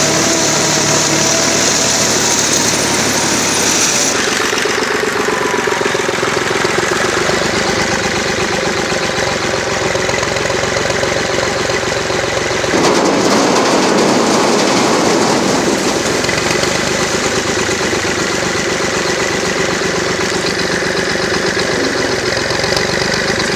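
Tractor engine and a Zmaj 214 trailed corn picker running steadily. A high hiss stops about four seconds in, and a louder noisy stretch of about three seconds comes about halfway through.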